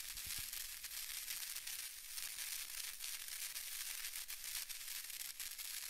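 Steady, fairly quiet crackling hiss with scattered faint clicks, like static, from an intro sound effect. Two faint low thumps sound near the start.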